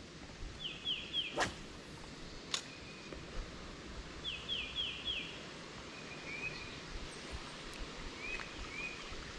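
A bird singing two short phrases of three or four quick, repeated high notes, about a second in and again about four and a half seconds in, with a few softer notes later. Two sharp clicks come between the phrases.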